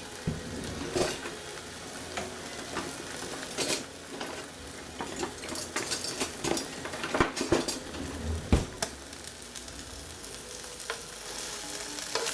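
Food sizzling in a hot frying pan, while a utensil is stirred and scraped through it with repeated sharp clicks and knocks against the pan, the loudest knock about eight and a half seconds in.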